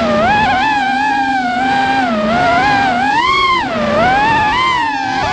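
Racing quadcopter's brushless motors and propellers whining up close, the pitch gliding up and down every second or so as the throttle changes through turns.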